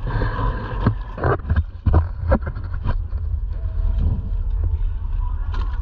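Wind buffeting the microphone in a steady low rumble on a sailing kayak, with a few sharp knocks against the kayak about one to two and a half seconds in.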